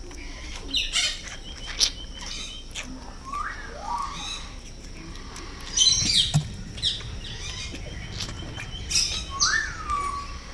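Scattered short clicks and smacks, which the title puts down to a baby rabbit sucking milk, mixed with short high chirps that glide up and down.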